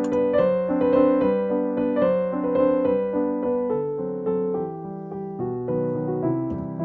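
Background piano music: a melody of single notes held and changing about every half second.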